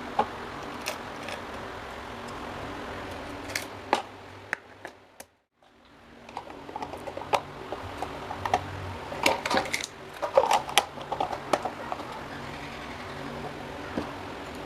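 Scattered sharp clicks and light knocks of small parts being handled and fitted, over a steady low hum. The sound cuts out briefly about five seconds in, then the clicking grows busier.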